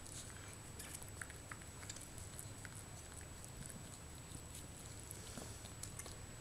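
Faint, scattered small wet clicks and smacks of a Maltese dog licking her newborn puppy, over a low steady hum.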